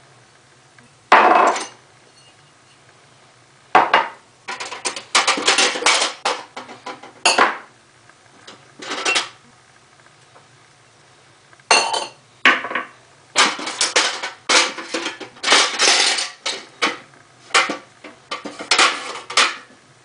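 Plates and drinking glasses clattering and clinking as they are handled in the basket of a 1948 Cameron countertop dishwasher: irregular bunches of knocks with short quiet gaps, the sharpest about a second in.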